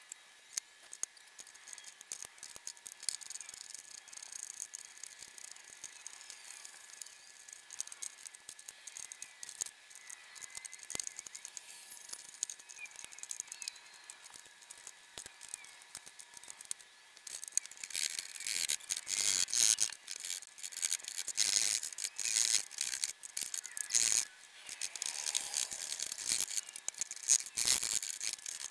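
Metal parts and tools being handled on a car's bare rear body shell: scattered clicks, light rattling and scraping. They grow busier and louder for the last ten seconds or so.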